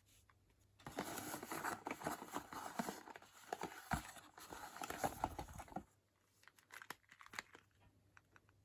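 Packaging being crinkled and rustled by hand for about five seconds, followed by a few light clicks and taps, as the next item is taken out.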